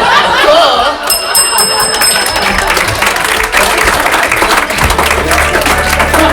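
Audience laughing and applauding. A high bell rings for about a second, a second in, and music with a steady bass line comes in near the end.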